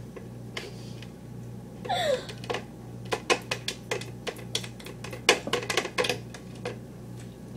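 A quick run of irregular sharp clicks and taps over a low steady hum, with a short voice sound about two seconds in.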